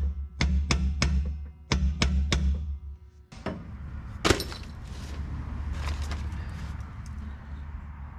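Background music with a steady percussive beat of about four clicks a second that stops about three seconds in, followed by a single sharp knock a second later and a faint hiss.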